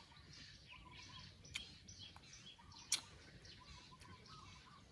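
Birds chirping steadily in the background, with two sharp clicks about one and a half and three seconds in, the second the louder.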